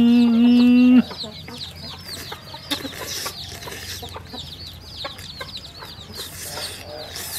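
Chicks peeping over and over, a stream of short falling chirps. In the first second a voice gives a loud, steady hum that stops abruptly.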